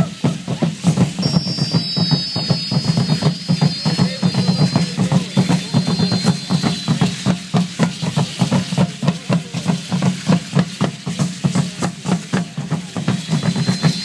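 Aztec dance drum beating a steady, fast rhythm, mixed with the shaking of the dancers' seed-pod ankle rattles. A thin, high whistling tone comes in about a second in, fades by the middle, and returns near the end.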